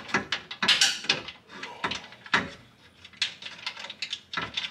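Irregular metallic clicks and knocks from an aluminum transfer case skid plate and its hardware being shifted and worked into place against a vehicle's underside, with the loudest knocks about a second in and again near two and a half seconds.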